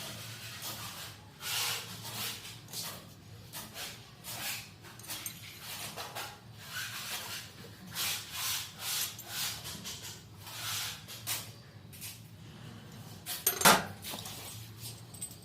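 Hand work on a wall mixer tap installation: irregular scrapes, rubs and small knocks of metal fittings and tools being handled, with one sharp, much louder knock near the end, over a steady low hum.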